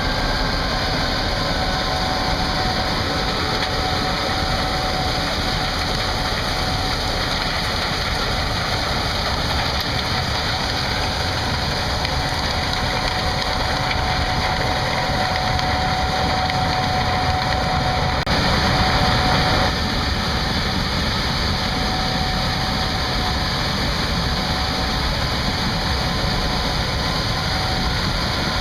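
Gleaner S78 combine running steadily while harvesting corn with its 8-row corn head, a constant machine noise with a faint steady whine. It gets briefly louder for about a second and a half near two-thirds of the way through.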